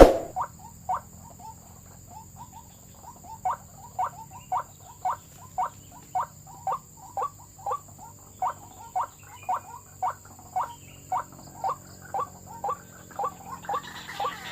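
White-breasted waterhen (ruak-ruak) calls: short notes repeated steadily at about two a second, the call used to lure the birds to a snare. A sudden knock right at the start.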